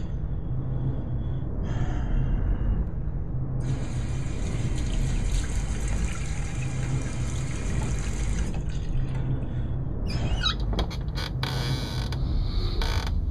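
Bathroom sink tap running into the basin, a steady hiss for about five seconds starting some three and a half seconds in, over a constant low rumble. Near the end come several short, sharp splashing sounds.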